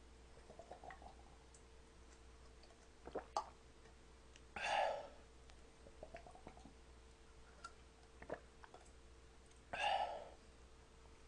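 Small plastic yogurt-drink bottles clicking faintly as they are handled, with short loud mouth noises from the drinker about five seconds apart as the bottles are downed one after another.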